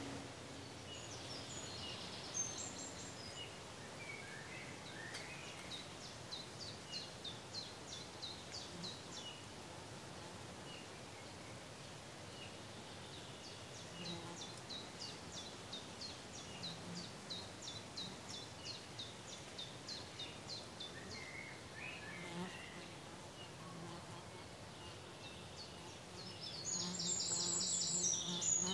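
Steady outdoor hiss with two long runs of rapid, high ticking chirps at about four a second, then a louder burst of dense high chirping near the end.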